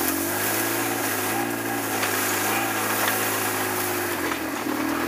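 Polaris RZR 800 side-by-side's twin-cylinder engine running steadily at a moderate speed, its pitch wavering slightly, with tall grass and brush swishing against the machine as it pushes through.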